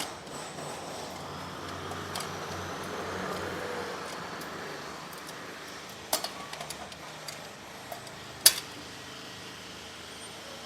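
Metal tools and car parts clinking and knocking during clutch dismantling, with a sharp single knock near the end, over a steady background hum.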